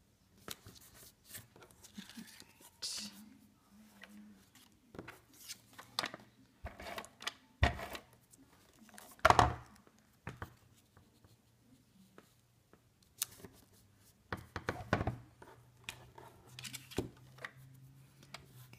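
Cut cardstock and patterned paper pieces being handled and pressed onto a corrugated card base: irregular rustling, crinkling and sharp paper clicks in short bursts, the loudest about halfway through.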